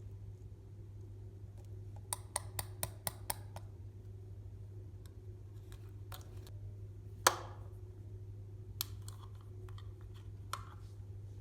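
Slime being pressed and worked by hand, giving a quick run of about seven sharp clicks, one louder pop, then scattered smaller clicks, over a steady low hum.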